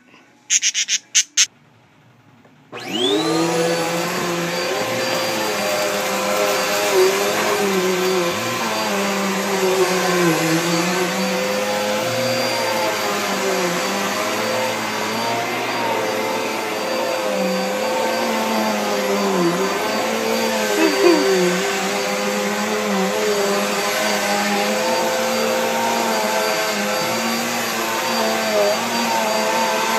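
Vacuum cleaner switched on about three seconds in, its motor whining up to speed and then running steadily, the pitch dipping and rising as it is worked over carpet.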